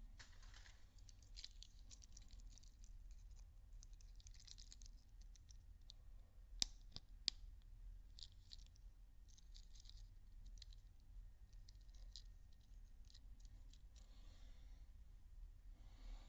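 Hands handling small plastic surprise-egg toys and capsule parts: faint rustling and light ticking, with two sharp clicks about halfway through.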